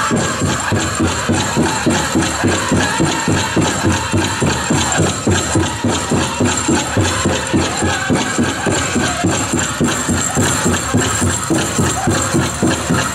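Powwow drum group playing a chicken dance song: a big drum struck in a steady, even beat, about three strokes a second, with voices singing over it. A jingling of the dancers' leg bells runs along with the beat.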